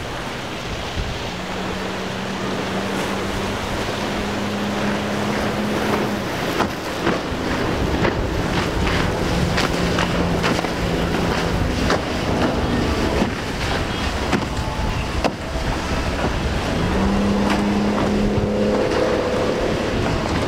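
Yamaha outboard motor on a Triton bay boat running at speed through choppy water, its engine tone picking up again near the end. It sounds over a steady rush of water and spray and wind on the microphone, with scattered sharp slaps of water midway.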